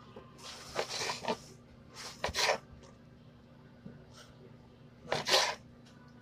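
Kitchen knife cutting cucumber: three short bursts of cutting, about a second in, around two seconds in and a little after five seconds, with one sharp knock of the blade about two seconds in.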